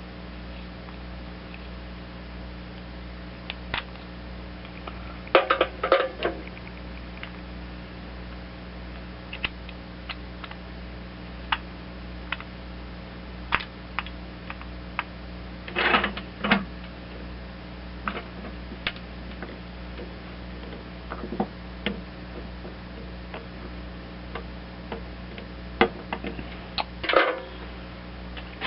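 Small metal carburetor parts and a screwdriver clicking and clattering on a workbench as the carburetor is dismantled, in scattered bursts that are loudest about five, sixteen and twenty-seven seconds in, over a steady low hum.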